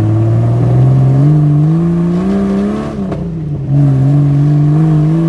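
Jeep Cherokee XJ engine accelerating under load while driving: its pitch climbs for about three seconds, drops sharply as the transmission shifts up, then climbs again.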